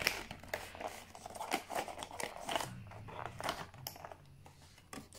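Cardboard box and crinkly plastic packaging being handled, with scattered short rustles, crinkles and taps as a small kit in a clear plastic bag is taken out of its box.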